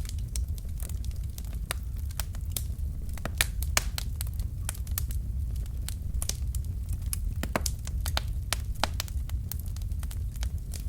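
Logs burning in a fireplace, crackling with frequent irregular sharp pops over a steady low rumble.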